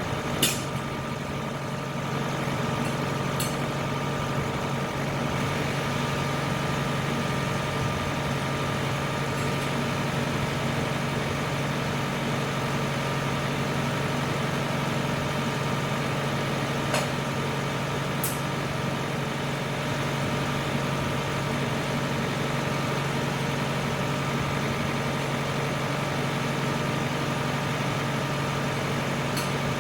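Tractor engine running steadily at a constant speed, with a few faint clicks now and then.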